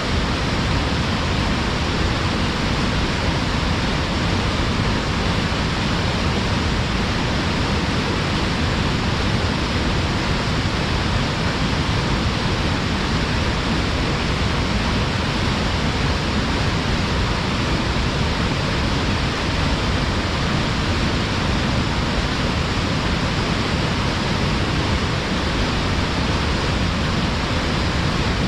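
Waterfall pouring hard between rocks: a steady, even rush of falling water with no breaks.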